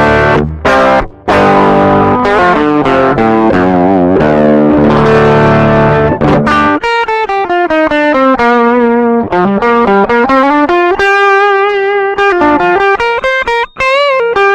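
Electric guitar played through a JOYO Tai Chi R-02 overdrive pedal with the gain fully up and the voicing turned toward the low end, recorded direct into an audio interface without an amp. Distorted chords ring for about the first seven seconds, then give way to single-note lines with bends and vibrato.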